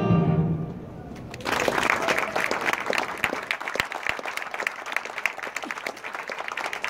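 A children's choir's last held chord dies away in the first second, then the audience applauds, the clapping starting about a second and a half in and going on steadily.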